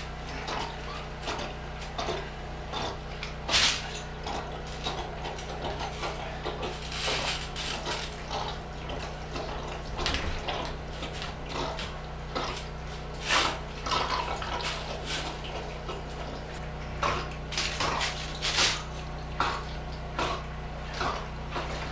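Water splashing and sloshing as a drain auger is worked down a submerged floor drain in ankle-deep floodwater, with scattered clinks and sharper splashes over a steady low hum.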